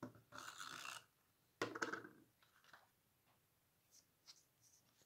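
Glue tape runner rolled along thin paper in two short strokes, the second starting sharply about a second and a half in, followed by a few faint clicks as paper is handled.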